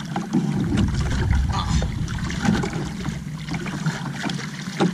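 Water lapping and sloshing against the hull of a small outrigger canoe, with scattered light knocks and clicks and a brief low rumble about a second in.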